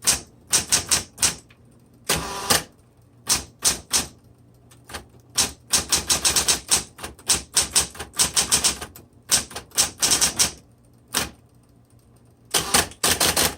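A Smith Corona Coronet Automatic 12 electric typewriter being typed on. Irregular runs of sharp, quick keystrokes come with pauses between, and there is a longer burst of noise about two seconds in.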